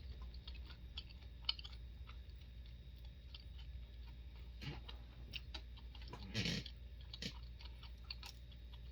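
Mouth sounds of a person chewing food, with many small wet clicks and one louder burst about six and a half seconds in.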